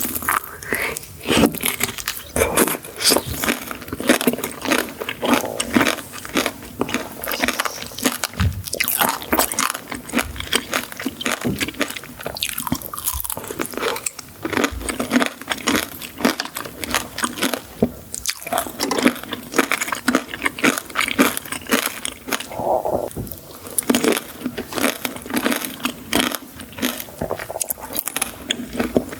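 A person chewing and crunching sweets, with dense irregular crackly bites throughout.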